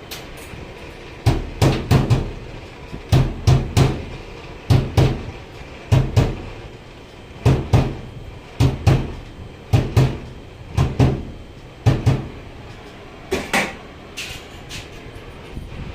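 Repeated heavy knocks, mostly in quick pairs, recurring roughly once a second. They stop about twelve seconds in and are followed by a ringing metallic strike, consistent with hammer blows on metal.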